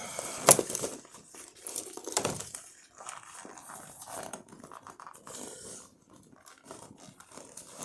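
A large dry bag being pushed and squeezed into a kayak's storage compartment: plastic crinkling and rustling handling noises, with a sharp knock about half a second in.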